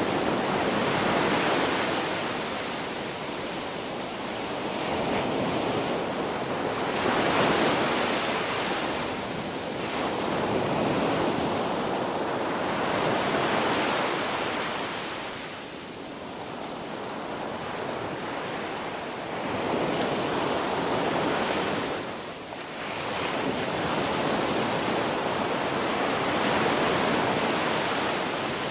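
Sea waves breaking and washing on a beach, an even rushing surf that swells and ebbs every few seconds, with dips near the middle and about three-quarters of the way through.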